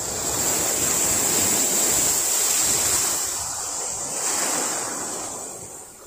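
Small sea waves breaking and washing up the beach. A rush of surf swells up at once and holds for a few seconds. A second, smaller wash comes about four seconds in and fades away.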